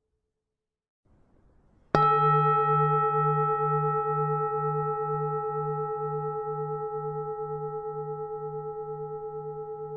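A large bronze Vietnamese pagoda bell struck once about two seconds in, then ringing on with several clear tones over a low hum that pulses about twice a second, fading slowly.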